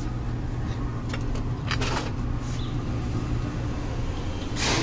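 Steady low mechanical hum of background ambience, with a few faint clicks about two seconds in and a short rush of noise near the end.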